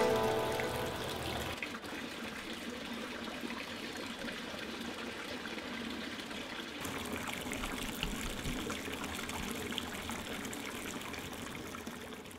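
Hot-spring water pouring from a wooden spout into a bath, a steady splashing trickle that turns brighter about seven seconds in. Background music fades out at the start.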